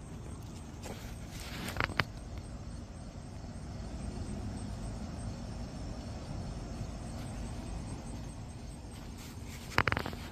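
Steady low outdoor rumble, like distant traffic, with a couple of sharp knocks about two seconds in and again near the end.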